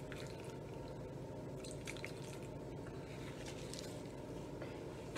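Water dripping and trickling faintly into a bowl in a few light drips, over a steady low background hum.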